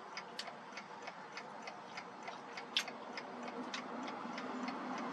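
Mechanical clock ticking steadily, about three ticks a second, with a soft hiss growing louder near the end.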